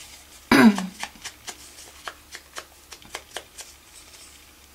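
Light, irregular clicks and rustles of cardstock cutouts and twig wreaths being handled and set in place. About half a second in comes one short, louder voice sound with a slightly falling pitch.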